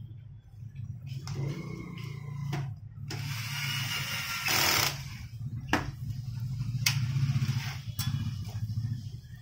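Cordless electric screwdriver whirring as it drives a screw into the metal frame of a Canon LBP 2900B laser printer, running for a few seconds in the first half. It is followed by several sharp clicks and knocks of parts being handled, over a steady low hum.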